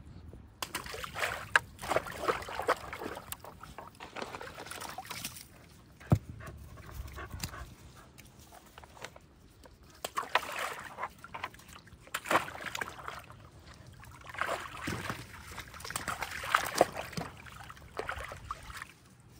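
Dogs splashing and sloshing water in tubs of floating tennis balls, in bursts with a quieter stretch in the middle. There is a single sharp knock about six seconds in.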